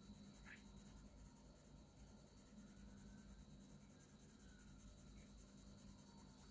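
Faint scratching of a Bruynzeel colour pencil shading short strokes on a sketch pad, over a low steady hum.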